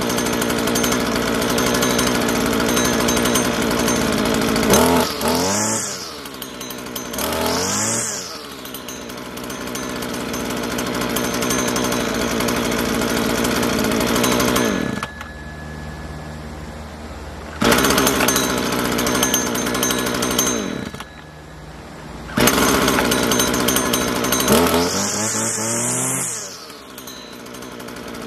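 Husqvarna 323L string trimmer's small two-stroke engine running and being revved with the throttle: two quick revs, a drop to a low idle twice in the middle, and a long high rev near the end. The engine has a freshly cleaned carburettor and an unclogged tank vent.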